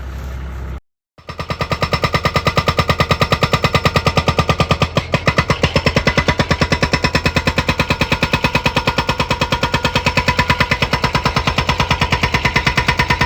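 Air-powered percussive tool hammering rapidly and steadily, starting about a second in, with a steady high whine over the blows.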